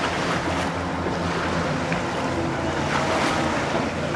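Jet ski engines running steadily, with water rushing and spraying under the hulls and wind noise on the microphone.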